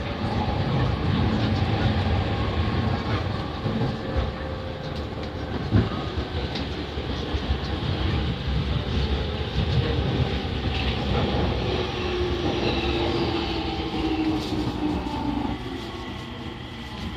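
Running sound of a JR Yamanote Line E231-500 series electric train heard from inside the car: steady wheel-on-rail rumble with a few clacks over rail joints. Near the end a whining tone falls in pitch and the noise eases a little.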